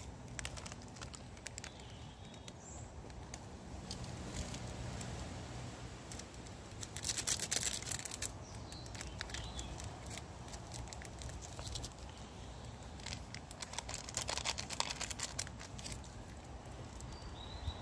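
Portable gas canister stove burning steadily under a pot of noodles, a low even rumble, with two spells of crackling about 7 and 14 seconds in and a few faint bird chirps.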